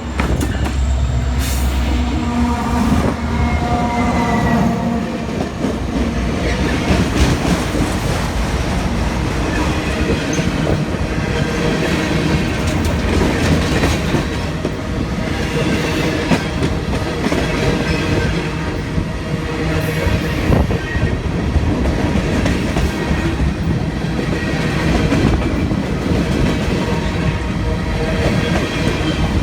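Union Pacific manifest freight train passing close by: the low diesel rumble of its locomotives, an SD70ACe and a C45ACCTE, is strongest in the first few seconds, then gives way to the steady rolling clatter of freight cars, with wheel clicks over rail joints and faint wheel squeal.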